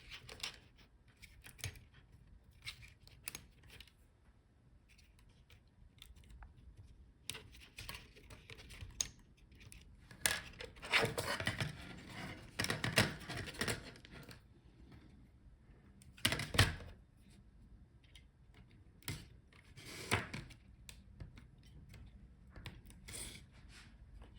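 Scattered small clicks, taps and scrapes of tools and fingers working on the opened laptop's internals, disconnecting small connectors and parts, with a busier stretch of rattling handling in the middle.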